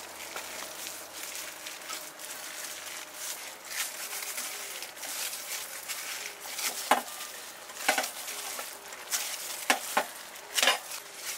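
Flour-and-water dough being kneaded by a plastic-gloved hand in a stainless steel bowl: soft squishing and glove crinkle, over a steady hiss. About half a dozen sharp clicks and knocks come mostly in the second half, as the bowl is worked and tilted against the table.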